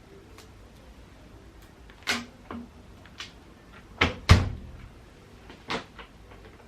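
Handling knocks and clunks from a washing machine being inspected: about six separate knocks, the loudest a deep thud just after four seconds in.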